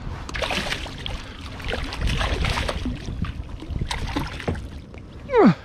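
Water splashing and knocks against a kayak while a big hooked smallmouth bass is brought up to the boat. A short, loud falling-pitched cry comes near the end.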